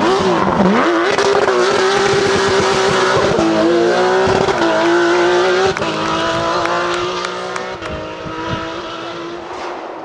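Porsche 911 rally car's flat-six engine revving hard as the car accelerates away on a rally stage, with a couple of quick gear changes. Near the middle it drops in loudness, then runs on steadily and fades into the distance.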